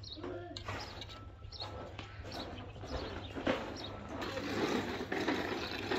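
Many birds singing and chirping together, with short, quick calls throughout and a low steady hum underneath.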